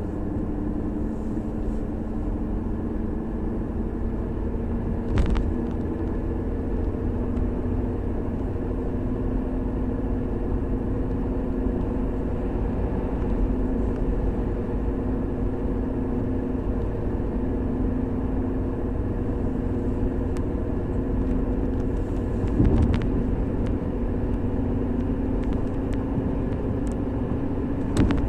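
Lexus GS350 AWD running with a steady low hum carrying a few fixed tones, and three short knocks: about five seconds in, and twice near the end. The owner cannot place the noise, though the wheel bearing and front driver-side axle have been replaced.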